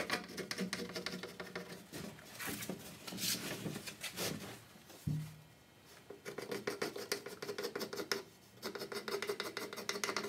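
Rapid scratching strokes of a red marker drawn back and forth across a plywood seat board, marking out the hole to be cut. The strokes pause briefly about five seconds in and again about eight seconds in.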